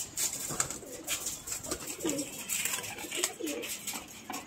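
Domestic pigeons cooing, several short low rolling coos in the middle stretch, with scattered sharp clicks around them.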